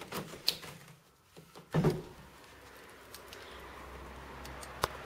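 Handling noises at a hotel window: light clicks and rustles, then a dull thump about two seconds in. After that a steady low outdoor rumble comes in and slowly grows, with one sharp click near the end.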